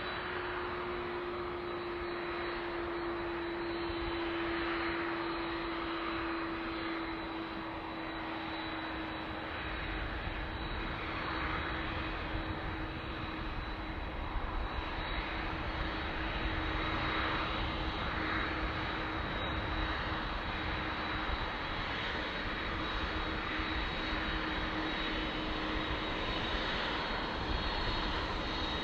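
Jet airliner engines running, a steady whine that drifts slightly lower in pitch, with a low rumble that grows about ten seconds in.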